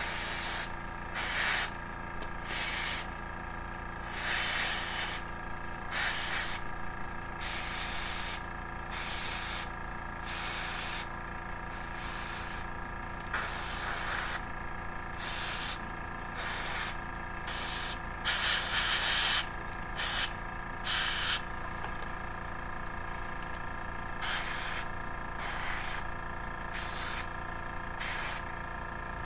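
Gravity-feed airbrush spraying paint in short bursts of hiss, some twenty times in quick succession, each lasting well under a second to about a second, over a steady background hum.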